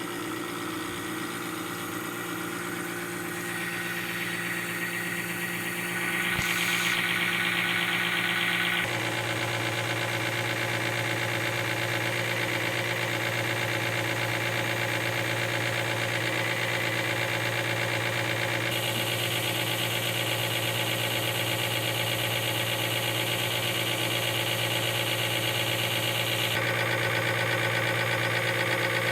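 Pump test bench driving a Caterpillar HEUI pump, running with a steady machine hum. Its tone shifts in steps a few times, getting slightly louder about 6 seconds in.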